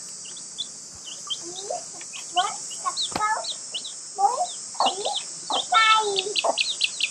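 Birds chirping and calling over a steady high-pitched hiss, the calls coming thicker in the second half.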